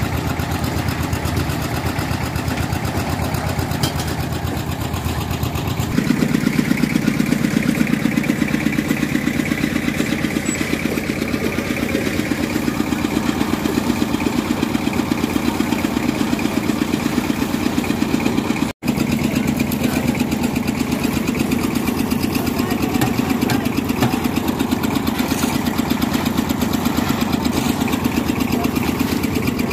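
Concrete mixer's engine running steadily with a fast, even beat. The sound shifts abruptly about six seconds in and cuts out for an instant about two-thirds of the way through.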